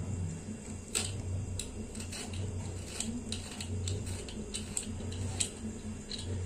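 Hand peeler scraping the tough ridged skin off a ridge gourd: a string of short, irregularly spaced scrapes and clicks over a steady low hum.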